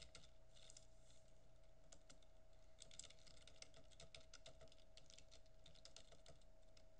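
Faint computer keyboard typing: quick runs of keystrokes, busiest in the second half.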